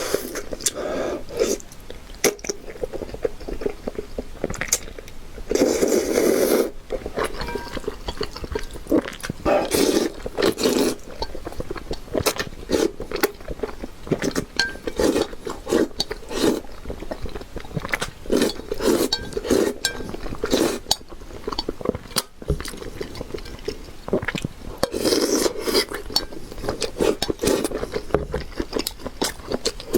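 Close-miked eating sounds: steady wet chewing and mouth smacking, with a few longer, louder slurps and clicks of utensils against a bowl.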